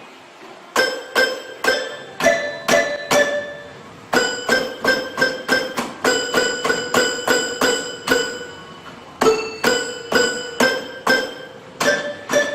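Struck, bell-like notes ringing out one after another, two or three a second, at a few different pitches like a simple tune, starting about a second in with short breaks near four seconds and near nine seconds.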